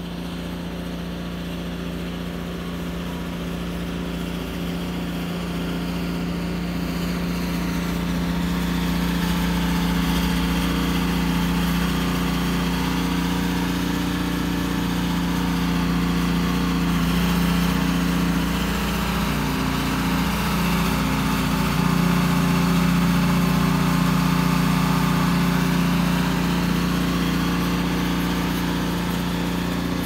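Cub Cadet 3X 30 HD three-stage snow blower running steadily while clearing snow, with a steady engine drone that grows louder over the first ten seconds or so as the machine comes closer.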